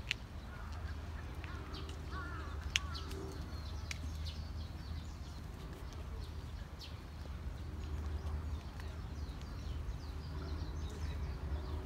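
Outdoor garden ambience: birds calling and chirping over a steady low rumble, with a few sharp clicks, the sharpest near the start and about three seconds in.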